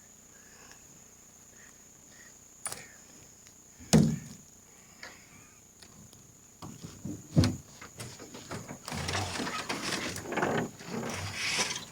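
Several sharp knocks: a light one near three seconds in, the loudest about four seconds in, another about seven and a half seconds in. Then nearly three seconds of rustling and scraping near the end.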